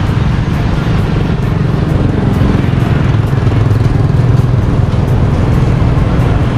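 Steady street traffic noise with motorbikes, dominated by a low, even rumble.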